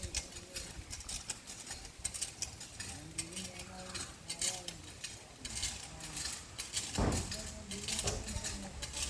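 A rapid, irregular series of short scraping and clinking noises, with a louder knock about seven seconds in.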